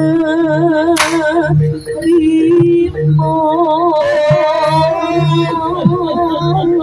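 Jaranan gamelan music: a high, wavering melody with heavy vibrato over a steady drone and a regular low drum-and-gong beat. A single sharp crack cuts through about a second in.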